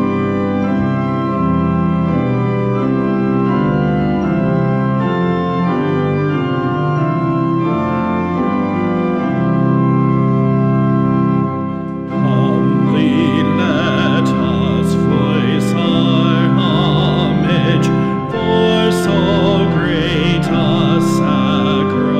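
Organ playing sustained chords; about halfway through, a singer's voice with vibrato joins in over the organ.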